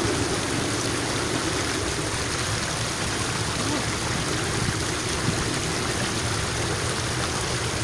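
Water in a narrow irrigation ditch rushing steadily along its channel.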